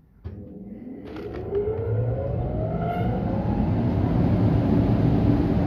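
Old Wadkin four-sided planer-moulder starting up: a switch click, then a cutter-head motor running up to speed with a rising whine, settling into a steady spinning hum.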